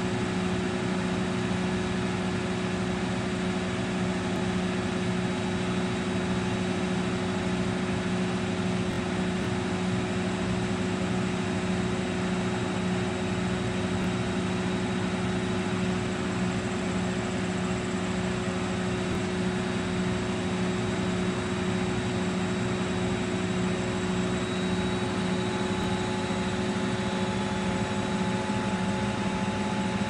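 Miele Novo Duo front-loading washing machine in its final spin, the drum and motor running at a steady speed with an even hum and whine. A couple of faint higher tones join about 25 seconds in.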